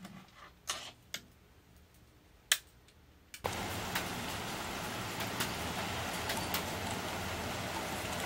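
A few sharp clicks as a camcorder is handled, the loudest about two and a half seconds in; then, after a sudden cut a little past three seconds, steady rain falling with scattered drips.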